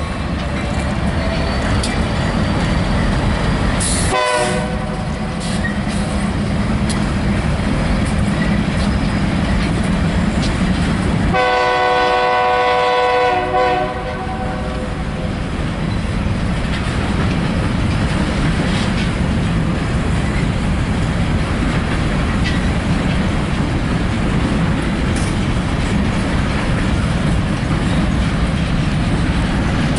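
CSX empty grain freight train rolling, with a steady rumble of wheels on rail. The locomotive horn gives a short blast about four seconds in and a longer blast of about two seconds around twelve seconds in.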